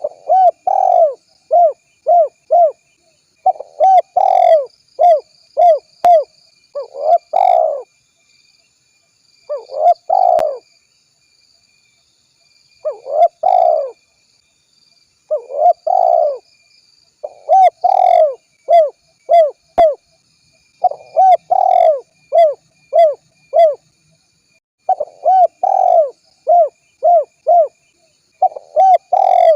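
Spotted dove (tekukur) cooing over and over, in phrases of several quick coos separated by short pauses, as a lure call.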